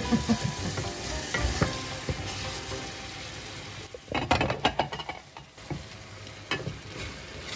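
Chopped vegetables sizzling in a stainless steel frying pan while a wooden spatula stirs and scrapes across the bottom, with a quick run of scraping strokes about four seconds in and another knock a couple of seconds later. The vegetables have caught a little on the pan bottom.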